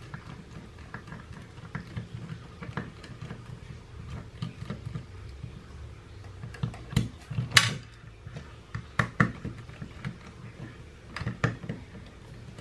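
Small scattered clicks and taps as a handheld two-way radio is handled and unscrewed with a small screwdriver, the metal tip scraping and clicking on the screws and plastic casing, with one louder clack about halfway through.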